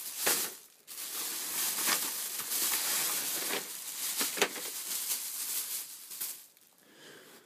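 Thin plastic shopping bag rustling and crinkling as it is shaken out, with a few light knocks of packaged makeup items dropping onto carpet; it goes quieter near the end.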